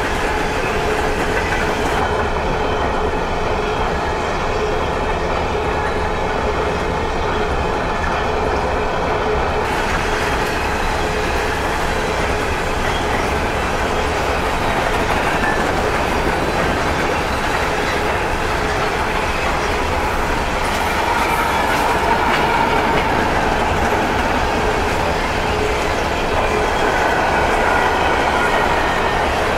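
Empty coal hopper cars of a freight train rolling past, a steady loud rumble of steel wheels on rail with clickety-clack over the rail joints.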